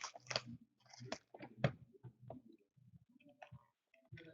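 A cardboard hobby box of trading-card packs being opened and emptied by hand: irregular rustling, crinkling and light clicks as the wrapped packs are pulled out.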